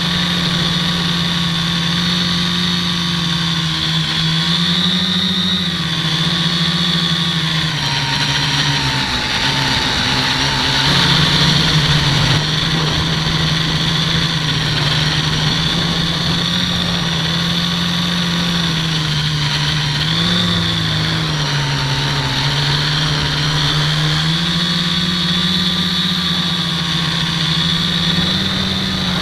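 Electric motors and propellers of an HK Dead Cat FPV quadcopter whining steadily, heard from the onboard camera. The pitch dips and swells with the throttle, lowest about ten seconds in and again about twenty seconds in.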